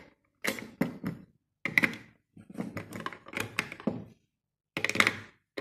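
Handling knocks and clatter: batteries going into the plastic hull of a toy remote-control boat, and the boat and its remote being knocked against and set down on a wooden table, in four or five separate bursts.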